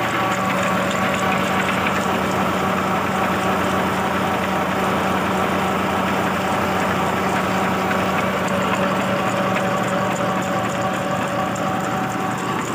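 Tractor diesel engine running at a steady speed under load, driving a tubewell pump through a line shaft and belt pulley: an even, unchanging mechanical hum.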